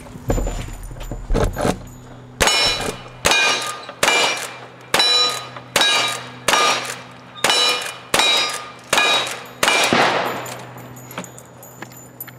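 A lever-action rifle fires about ten shots in quick, even succession, roughly one every 0.8 s. Each shot is followed by the clang of a steel target ringing as it is hit. A few softer knocks come in the first two seconds.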